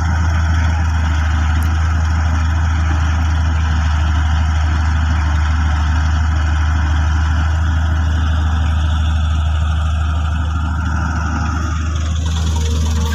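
Diesel engines of an excavator and a tractor running steadily with a deep constant hum while the excavator loads soil into the tractor's trolley.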